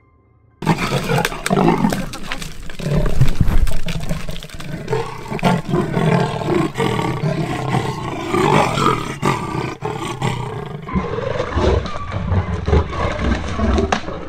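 Two leopards growling at each other as they fight over a kill, starting about half a second in and going on without a break.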